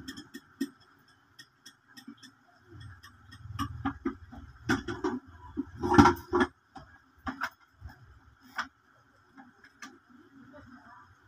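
Small hand hammer tapping in short, irregular light knocks, the loudest about six seconds in.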